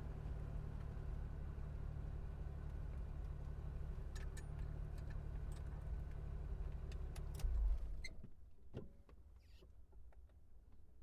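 A steady low machine hum that stops abruptly with a loud low thump about eight seconds in, followed by a few faint clicks.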